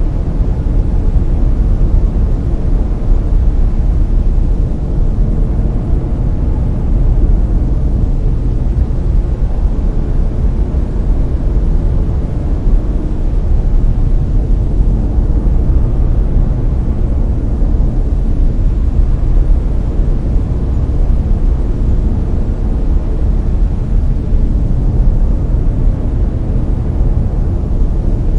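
Layered brown noise: a loud, steady, deep rumbling hiss, strongest in the lows and fading toward the highs, with no change over time.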